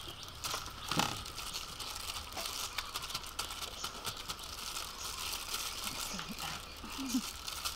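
Thin plastic food-prep gloves crinkling and flour rustling as hands toss and press raw chicken strips through flour in metal trays, with small ticks and scrapes throughout.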